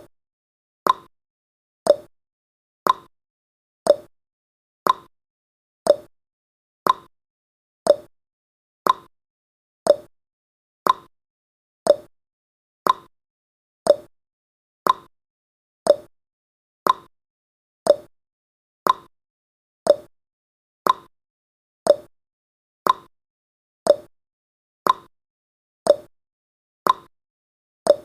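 Countdown timer's tick sound effect, one short sharp tick every second, keeping perfectly even time.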